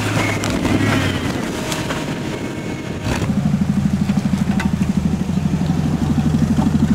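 Off-road trial vehicles' engines working on a steep dirt climb. For the first three seconds it is a tube-frame buggy. Then a short-wheelbase 4x4's engine takes over, running under load with a fast, even pulsing.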